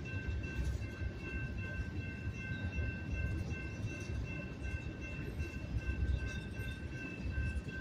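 Freight cars of a slow-moving train rolling over the crossing with a low, steady rumble of wheels on rail. A grade-crossing warning bell rings steadily over it as a high tone.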